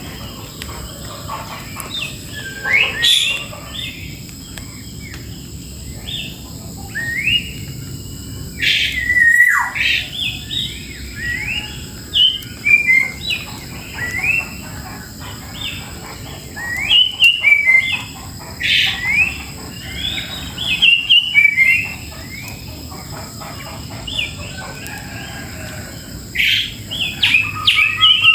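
Birds chirping and calling over and over in short rising and falling notes, with louder bursts of chatter every few seconds, over a faint steady high-pitched tone.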